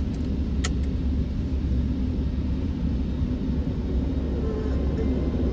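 Automatic car wash cloth strips and brushes scrubbing over the car, heard from inside the cabin as a steady low rumble, with one sharp tap about half a second in.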